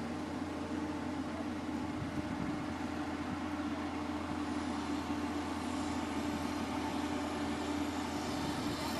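Mitsubishi Triton L200 pickup running steadily: a constant engine hum over an even hiss of noise, with a small knock about two seconds in.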